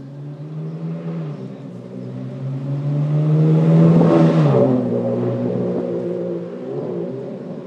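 A motor vehicle's engine passing close by. Its hum grows louder and rises slightly in pitch to a peak about four seconds in, then drops in pitch and fades as it moves away.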